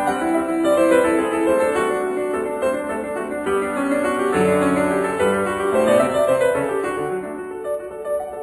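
Background music: a piano playing a gentle melody.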